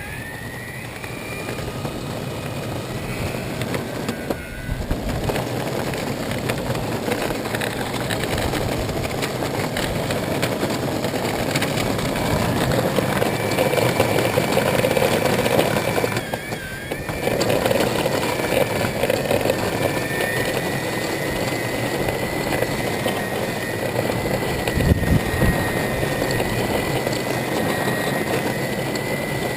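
Electric mountainboard's brushless SK3 260KV outrunner motor whining under way, its pitch drifting up and down with speed over a steady rushing noise. The sound dips briefly twice.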